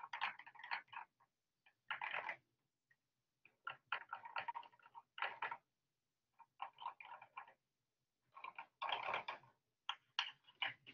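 A thin wooden stick clicking and scraping against small clear plastic cups, stirring diluted India ink. The sound comes in several short flurries of rapid clicks with pauses between them, one cup after another.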